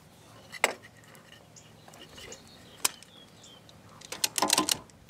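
Wire strippers snapping shut on an insulated wire and pulling off the insulation: a sharp click about half a second in, another near three seconds, and a quick run of clicks near the end.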